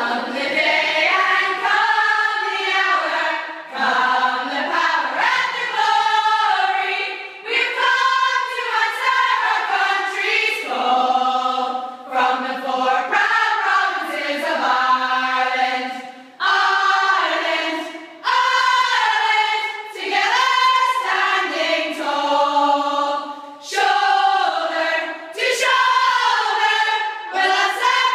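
A group of young women singing together without instruments, in phrases of a few seconds with short breaks between them.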